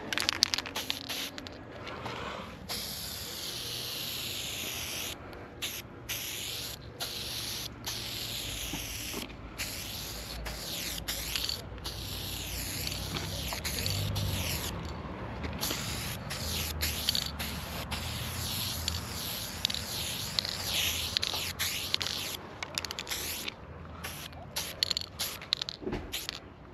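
Aerosol spray paint can fitted with the wide-stroke BIG Shotty ULTRA cap, hissing in long strokes with short breaks between them as paint is laid onto a wall. A few clicks come right at the start.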